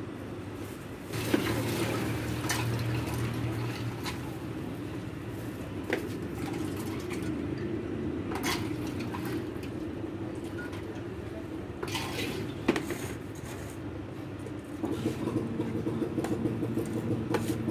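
A ladle scooping a pink iced drink from a large plastic jug and pouring it into a cup, with a few splashing pours. Under it runs a steady low hum, joined about fifteen seconds in by a throbbing engine.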